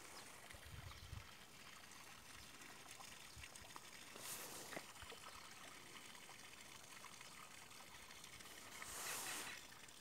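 Faint trickle of water, with two brief swells of hiss about four and nine seconds in.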